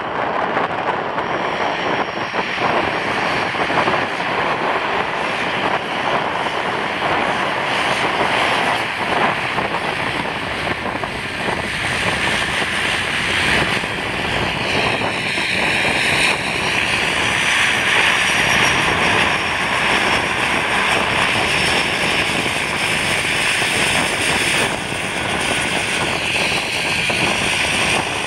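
De Havilland Canada DHC-6 Twin Otter's two Pratt & Whitney PT6A turboprops running as the aircraft taxis close by: a steady loud propeller and turbine rush with a high whine that wavers around the middle and again near the end.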